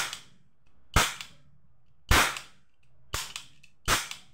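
Toy revolver firing plastic ring caps: five sharp cap bangs, about one a second, as the trigger is pulled and the ring advances to the next cap.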